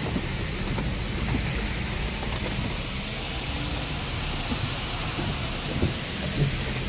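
Rain falling on a car's roof and windscreen, heard from inside the cabin as a steady hiss over low road noise, with a couple of faint knocks near the end.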